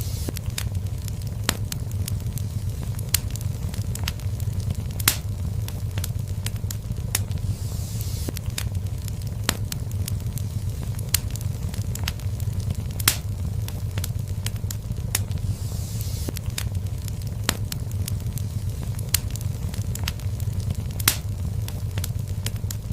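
Fireplace fire crackling, with frequent sharp pops over a steady low rumble and a soft hiss that swells every several seconds.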